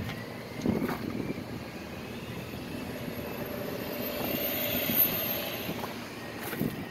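Electric motor of a 2017 Lincoln Navigator's power-folding third-row seat running with a steady whir that swells and then fades near the end, after a single thump about a second in.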